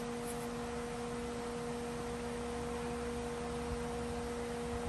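A steady electrical hum: one low tone with higher overtones, unchanging, over faint room noise, with a single sharp click at the very end.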